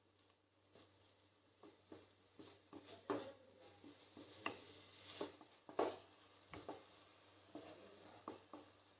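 A utensil stirring and scraping food in a cooking pan, with irregular knocks and scrapes over a faint sizzle.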